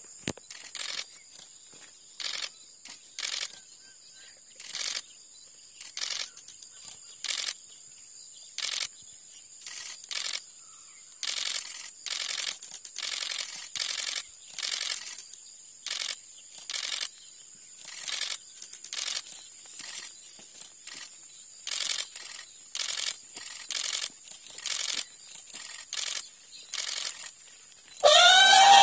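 Camera shutter clicking irregularly, about once a second, over a steady high insect-like drone. Near the end an Asian elephant tusker gives one loud warning trumpet that rises and falls in pitch.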